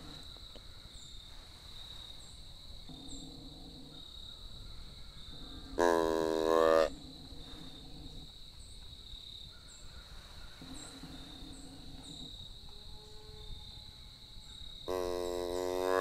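A hand-held tube deer call blown twice, each a single steady-pitched call lasting about a second, the second near the end. Insects trill steadily underneath.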